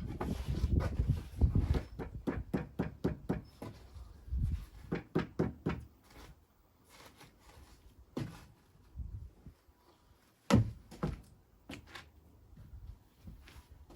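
A run of quick knocks and taps, several a second, for about the first six seconds, then scattered thuds, with one sharp, loud knock about ten and a half seconds in.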